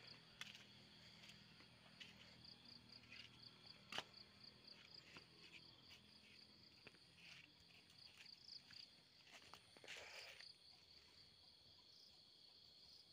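Near silence with faint insects chirping in an even rhythm, about four chirps a second over a steady high trill, and a few soft clicks.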